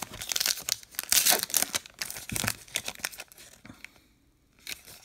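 Wrapper of a 2019 Topps Allen & Ginter baseball card pack being torn open by hand: a run of ripping and crinkling for about three and a half seconds, loudest about a second in, then a short crinkle near the end.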